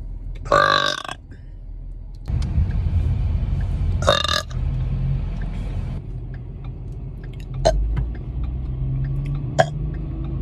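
A person burping loudly twice, a short burp about a second in and another about four seconds in, over a low steady rumble, with a couple of sharp clicks near the end.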